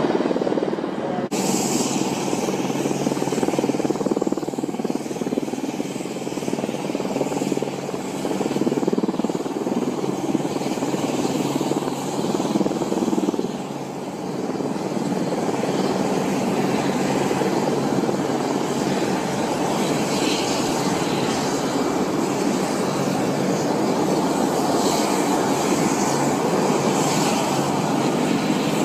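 Several AH-64 Apache attack helicopters running close by as they lift off together: a loud, steady, rapid rotor chop.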